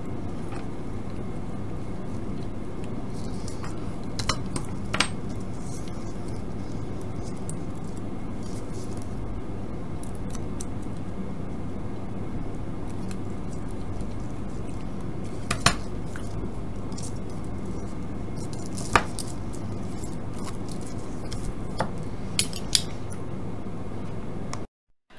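A thin metal screwdriver clinks lightly and now and then against the IF transformer cans of a six-transistor AM radio kit board as their cores are adjusted. The clinks come singly and scattered, with a small cluster near the end, over a steady low background noise.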